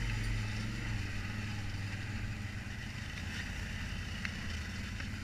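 ATV engine running steadily as the quad rides along a dirt trail, with a couple of faint clicks about three and four seconds in.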